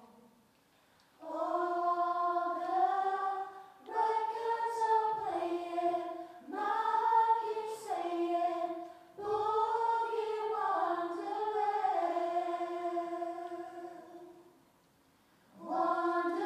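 A vocal group singing unaccompanied in close harmony: long held chords that step up and down in pitch, phrase by phrase, with a short pause about a second in and another near the end.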